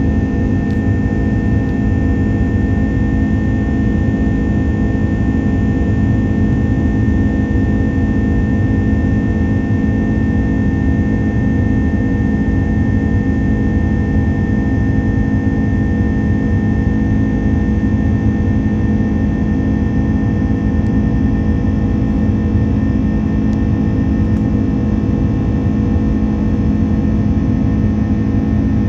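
Airbus A330-300 jet engine at climb power, heard inside the cabin: a loud, steady low rumble and hum with a thin, steady whine above it that doesn't change.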